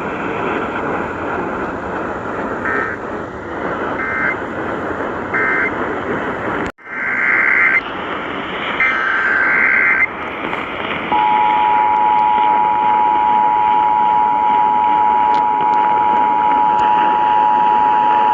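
Emergency Alert System transmission heard over a radio with heavy static. Short screechy data bursts of the alert header come three times, faint, then louder after an abrupt cut. About eleven seconds in, the steady two-tone EAS attention signal starts and holds.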